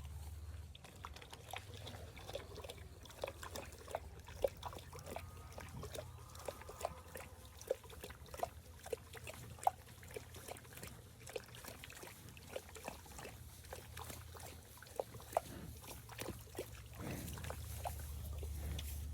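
Cattle in a brook: water splashing and trickling in many small, irregular splashes and slurps, over a low steady rumble.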